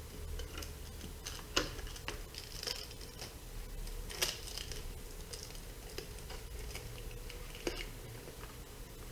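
Light handling noises of aluminium tape being worked onto the inside of a Lexan RC body shell: scattered soft clicks and crinkles, with three sharper snaps spread through, over a faint steady hum.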